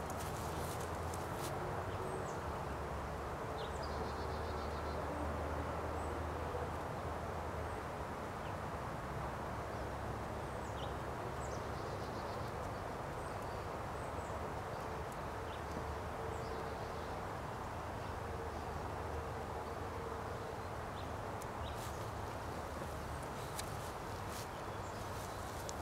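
Outdoor ambience: a steady low rush with small birds chirping faintly now and then, and a few light clicks near the start and again near the end.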